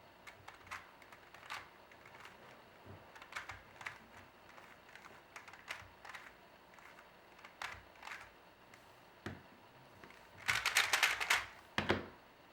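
Plastic Rubik's Cube layers being turned, clicking sparsely at first, then a fast flurry of turns about ten and a half seconds in as an algorithm is executed.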